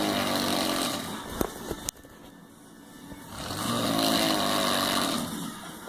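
A person snoring loudly in long, drawn-out breaths. One snore ends about a second in and a second one runs from about three and a half to five seconds in, with a couple of short clicks between them.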